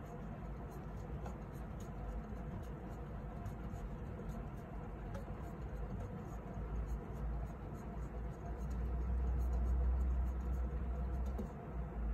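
Clear plastic hamster wheel spinning and rumbling under a running kinkuma (Syrian) hamster, with faint rapid ticking. The rumble grows louder about nine seconds in and eases off near the end.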